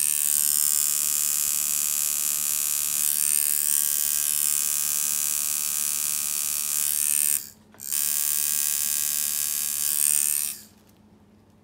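Horiyasu's custom-built tattoo machine buzzing steadily with a high, whining tone while tattooing skin; it cuts out for a moment about two-thirds of the way in, starts again, and stops near the end.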